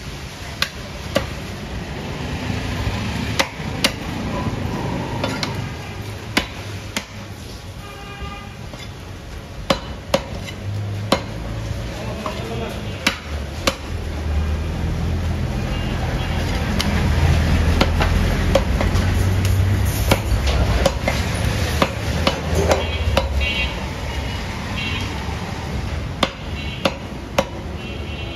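A butcher's cleaver chopping beef on a wooden chopping block: sharp, irregular chops, about one every second or two. A low rumble swells through the middle.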